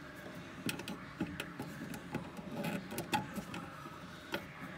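Quiet handling noises: scattered small clicks and rubbing from hands working plastic air-horn tubing onto a fitting.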